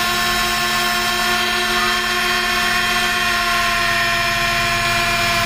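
Motor of an automatic lens edging machine running with a loud, steady whine over a low hum.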